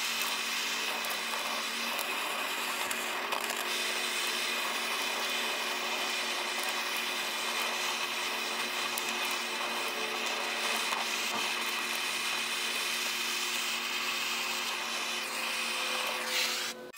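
Blow torch flame running with a steady rushing hiss, with a few faint crackles from the burning popcorn; it cuts off suddenly near the end.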